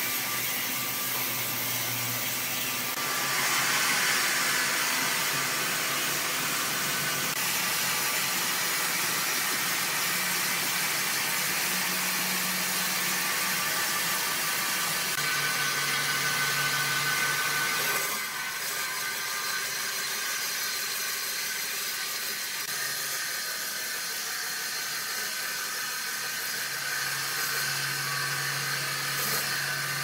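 Horizontal band sawmill running and its blade cutting lengthwise through a large log: a steady, dense whir of motor and saw noise, which drops a little in level about two-thirds of the way through.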